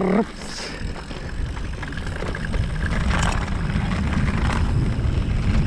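Wind buffeting the microphone and tyres rolling over grass as a mountain bike rides downhill, getting louder as it goes, with a couple of brief knocks from the bike over bumps in the second half.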